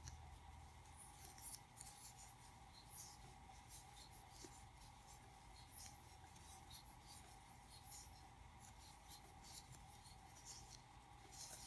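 Faint, irregular scratching and rustling of a metal crochet hook catching and pulling worsted-weight yarn through stitches, about one or two soft scratches a second, as single crochet is worked stitch by stitch.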